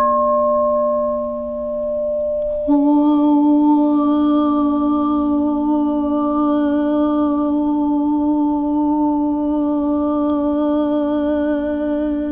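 Background music of long held notes, hum-like and steady. A louder, slightly higher note comes in about two and a half seconds in and holds with a slight waver.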